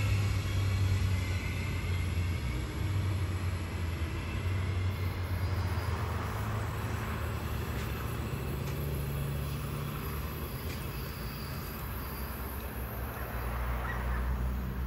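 A large vehicle's low, steady hum, its pitch shifting several times and growing louder near the end.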